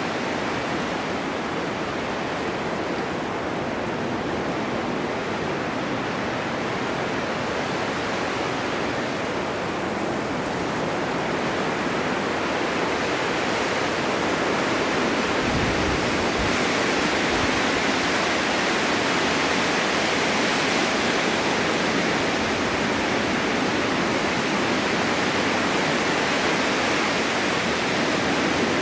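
Steady rushing of a snowstorm wind, its hiss swelling a little about halfway through.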